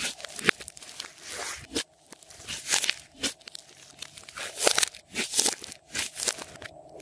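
Hands kneading and squeezing a thick mound of glossy slime: irregular squishing with sharp crackly bursts each time it is pressed and pulled, about half a dozen loud ones.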